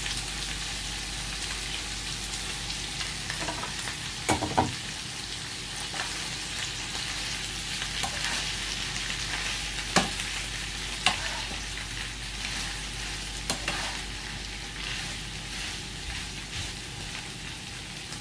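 Whole shrimp sizzling in hot oil and garlic in a frying pan, stirred with a spatula that knocks sharply against the pan several times.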